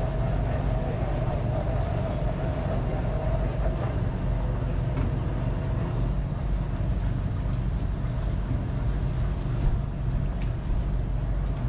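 A boat's engine running with a steady low drone, and a fainter higher hum that fades over the first few seconds.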